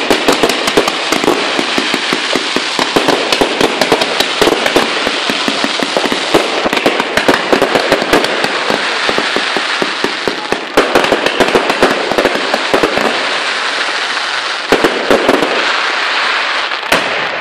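Fireworks display: a dense, continuous crackle of many small reports with louder bangs among them. The crackling thins somewhat in the last few seconds, broken by a few clusters of sharper cracks.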